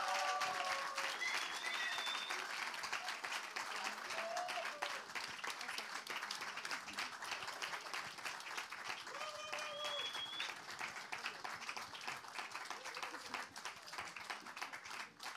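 Live audience applauding in a hall after a choir performance, with a couple of cheering voices over the clapping. The choir's final sung chord dies away in the first second.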